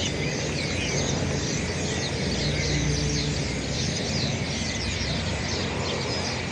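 A large flock of birds chattering: many short chirps overlapping without pause, over a steady low rumble.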